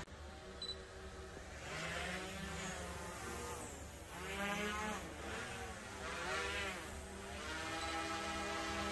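Small quadcopter drones buzzing overhead, their propeller whine rising and falling in pitch as they manoeuvre and swelling louder three times.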